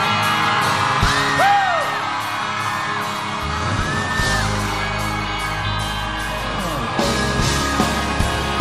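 Live band playing a slow song intro over screams and cheers from a concert audience. A bass line comes in a few seconds in, and drum hits start near the end.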